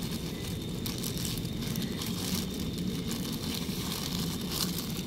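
Steady low background rumble with faint, scattered crinkles of a plastic bag as a gloved hand works food out of it.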